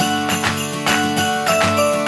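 Festive Christmas-style background music starts suddenly, with sleigh bells shaken on a steady beat over a bass line and a stepping melody.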